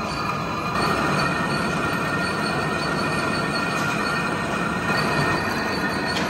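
An old W&B vertical turret lathe cutting a large metal pulley blank, the tool on the turning workpiece making a continuous grinding noise with several steady high-pitched tones over it. It grows a little louder about a second in.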